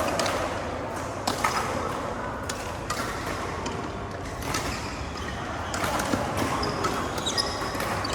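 Badminton rally: irregular sharp taps of rackets striking the shuttlecock, about one every second or so, with a few short high squeaks near the end.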